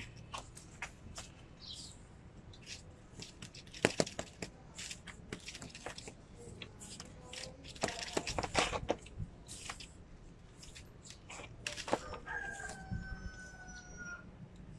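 A rooster crows once about twelve seconds in, ending on a long held note that falls slightly, over irregular sharp clicks and crackles heard throughout.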